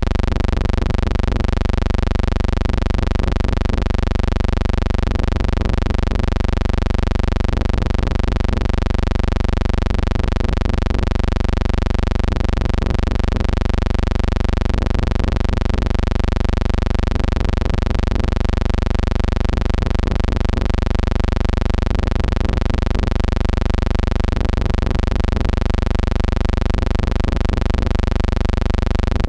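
A steady, loud low hum with a dense stack of overtones, unchanging throughout and with nothing else heard over it.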